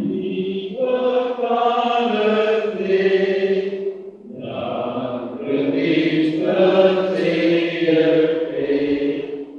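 A church hymn sung slowly in long held notes, breaking off briefly about four seconds in between lines before the singing picks up again.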